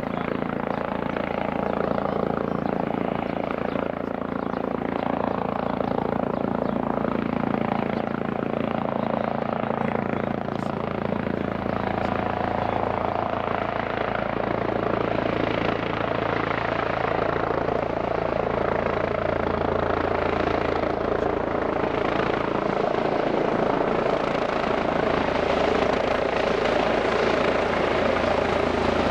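AeroCare medical helicopter running, a continuous turbine and rotor sound with steady tones that shift a little partway through and grow slightly louder near the end.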